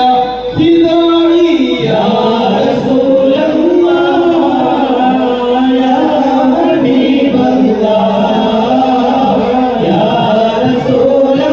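Group of men singing a devotional song in praise of the Prophet through microphones, with no instruments. A single voice holds a note at first, then about two seconds in the whole group joins and sings on together.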